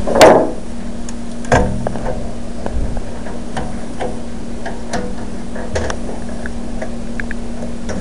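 Hands fitting a SATA cable onto a hard drive inside a computer case: scattered light clicks and taps of plastic and metal, with a louder knock-and-rustle just after the start and another about a second and a half in, over a steady low hum.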